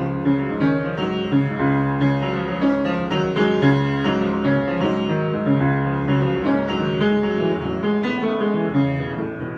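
Piano improvisation: sustained chords in the low and middle register with a melody over them, new notes struck every fraction of a second without a break.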